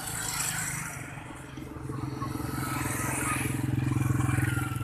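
Motorcycle engine running close by, a steady low putter that swells about halfway through and is loudest near the end, over the hiss of road traffic.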